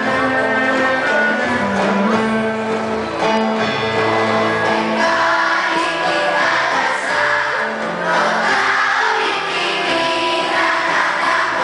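Children's choir singing a song, accompanied by a small ensemble of violin and guitar.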